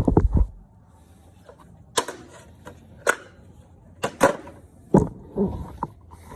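Irregular sharp knocks and taps, about a dozen in all, with a loud cluster right at the start and single hard knocks roughly a second apart after that.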